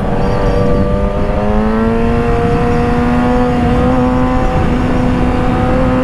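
Yamaha YZF-R6's inline-four engine pulling steadily through a bend. Its pitch rises gently over the first two seconds and then holds nearly steady, with wind noise underneath.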